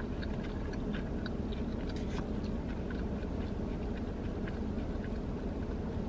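Close-up chewing of a bite of fried chicken strip, with many small wet mouth clicks, over a steady low hum.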